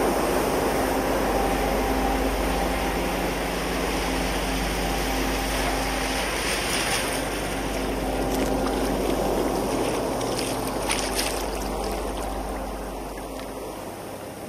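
Waves washing and water sloshing among tidepool rocks, recorded binaurally, with a low steady hum of held tones underneath. A few brighter splashes come midway, and the whole fades down near the end.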